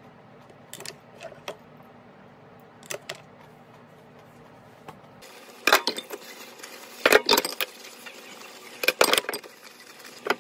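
Dishwashing in a stainless-steel sink: glass pot lids and metal cookware clank and clatter in several loud bursts while a soapy sponge scrubs. Before that, a few faint light clicks of chopsticks at the table.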